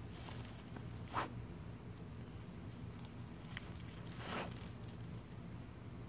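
A chocolate Labrador's nose and mouth working in grass: short rasping sniffs and rustles, with one sharp snap about a second in and a longer rasp a little past halfway.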